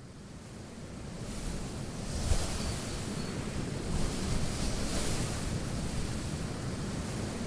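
Wind rushing in gusts, fading in from silence over the first couple of seconds and then swelling several times.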